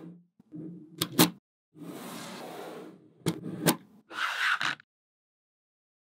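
Small magnetic balls snapping together with sharp clicks, twice just after a second in and twice more a little past the middle, between stretches of sliding, rattling noise as they are pushed around. The sound cuts off suddenly near the end.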